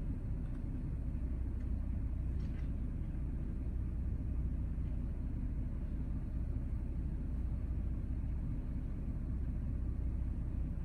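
Pickup truck engine idling: a steady low rumble heard from inside the cab.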